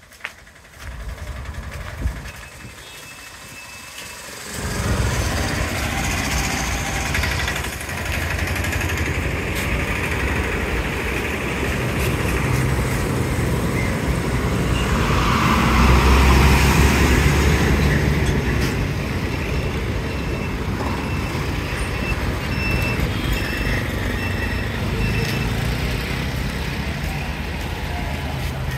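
Street traffic: motor vehicle engines running and passing, quiet at first and then steady from about four seconds in, loudest about halfway through as one passes close.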